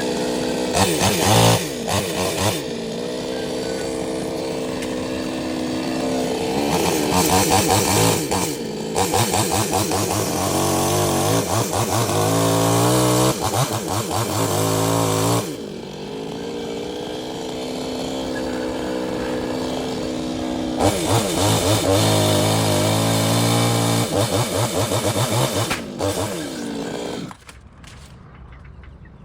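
Chainsaw cutting dead mango wood, the engine revving up under load and dropping back again several times. Near the end it falls much quieter.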